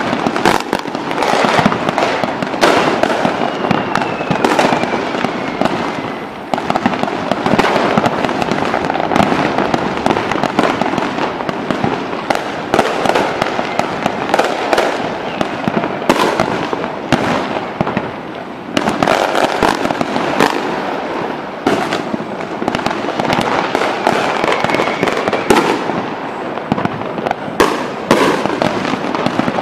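Aerial firework shells bursting in a dense, near-continuous barrage of bangs and crackle, easing off briefly twice.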